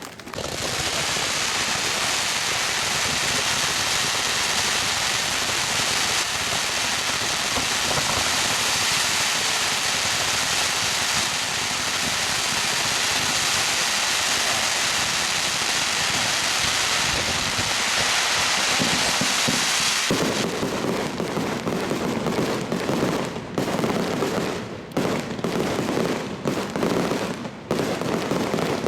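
Fireworks crackling and hissing in a dense, continuous shower that starts abruptly, then about twenty seconds in switches suddenly to a lower, choppier crackle with brief gaps.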